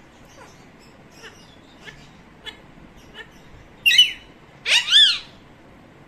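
Caged pet parakeet giving soft, short falling chirps about every half second, then two loud calls: a short one about four seconds in and a longer one that rises and falls about five seconds in.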